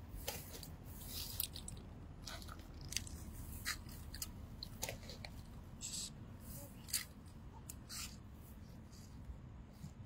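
Wet fishing net being handled and pulled, its mesh rustling and crackling in short, scattered crinkles, with a few sharper ticks.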